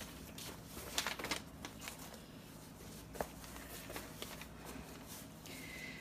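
Light paper rustling and a few soft clicks and taps as sublimation transfer paper and heat tape are handled and smoothed onto a neoprene sleeve.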